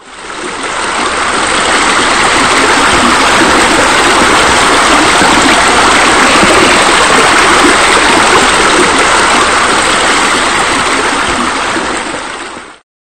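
Steady rush of running water. It fades in over the first second or so, tapers near the end, then cuts off.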